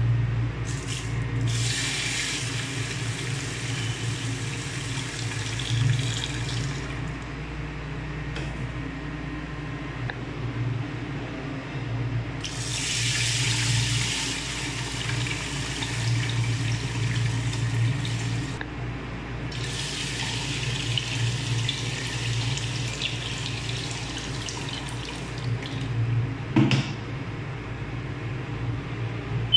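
Water poured from an electric kettle into an aluminium pressure cooker onto dry mung beans, splashing in three long pours over a steady low hum. A short knock comes near the end.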